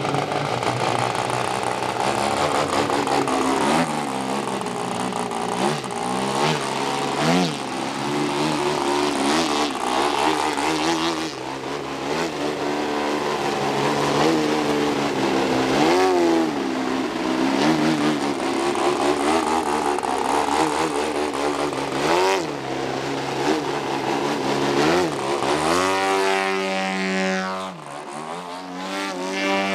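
ZDZ petrol engine of a 39% scale Laser Z2300 aerobatic model airplane running through 3D aerobatics, its pitch swinging up and down again and again. About 26 seconds in it drops to a lower, steadier drone, dips sharply and then climbs again near the end.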